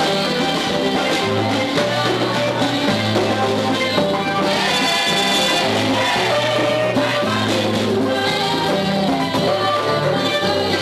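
Live church worship music: women singing into microphones over a band with keyboards, a continuous song with a steady bass line.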